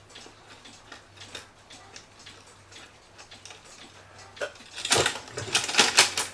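Faint ticking and small clicks of hands working inside a cuckoo clock case, then about five seconds in a loud rattling and rustling lasting over a second as the chain and its securing wire are pulled through the movement.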